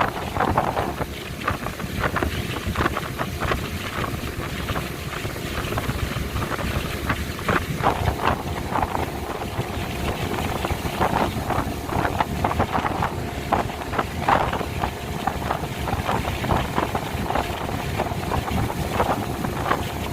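Speedboat running at speed: a steady engine drone under heavy wind buffeting on the microphone, with irregular gusts and splashes.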